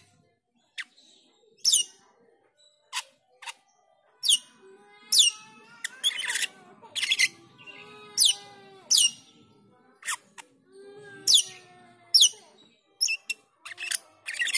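Asian glossy starling calling: a string of sharp, high notes that each drop steeply in pitch, repeated irregularly, with a softer, lower warbling chatter between them in the middle stretch.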